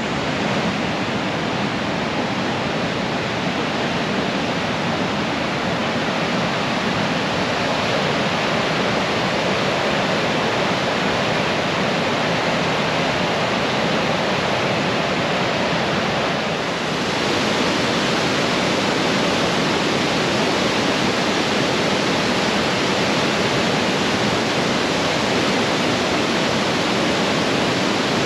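Rapids of the Niagara River above the falls, rushing steadily. About two-thirds of the way through, the rush becomes slightly louder and more hissing.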